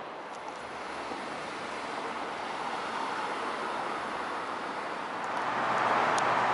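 Street traffic noise outdoors: a steady rush of passing cars mixed with wind on the microphone, swelling louder about five seconds in.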